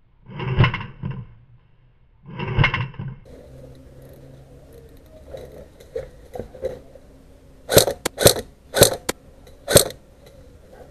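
Two short shouted calls near the start, then a quick run of about six sharp snaps of airsoft rifle shots over about two seconds.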